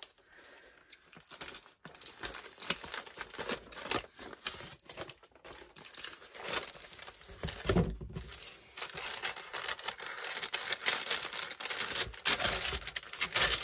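Cardboard box, clear packing tape and a brown paper bag being handled and opened: irregular crinkling and rustling, with scissors cutting through tape. A dull knock about eight seconds in.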